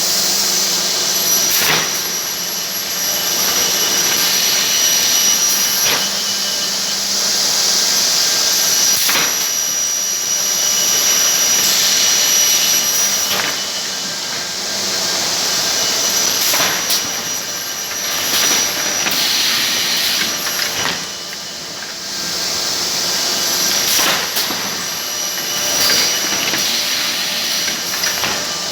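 Automated CNC machining line running: a steady, loud machine noise with high-pitched whines that start and stop, and a sharp click or knock every few seconds.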